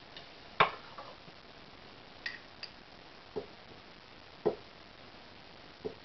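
Hands handling small objects, among them a glass jar, on a wooden surface: about seven scattered light knocks and clicks, the loudest about half a second in and another a little past four seconds.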